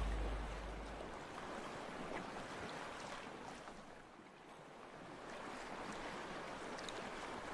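The last of a music track's bass fades out in the first second. After that there is only a faint, even wash of sea water and gentle waves, which dips briefly midway and comes back.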